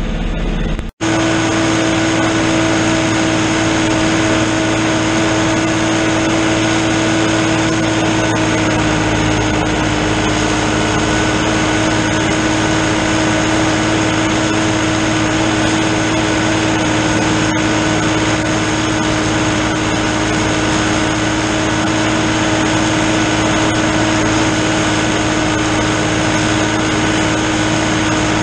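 New Holland TN70 tractor's diesel engine running steadily under load, driving a PTO drum mower through thick standing hay. The pitch drops slightly about a third of the way in as the engine pulls down.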